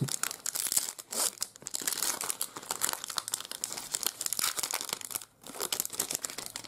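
Foil trading card pack wrapper crinkling and tearing as it is opened by hand, a dense run of fast, irregular crackles with a brief pause about five seconds in.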